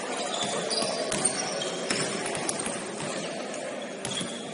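Basketball gym ambience: a steady low murmur with a few scattered knocks and brief high squeaks.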